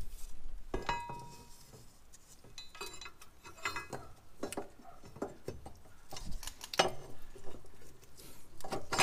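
Scattered light metallic clinks and knocks, a few of them briefly ringing, as suspension parts and hardware are handled and fitted into place.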